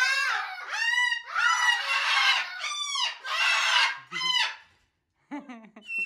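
Moluccan cockatoo screaming: about six loud screams in quick succession, each rising and falling in pitch, then a short pause and a quieter, lower call near the end.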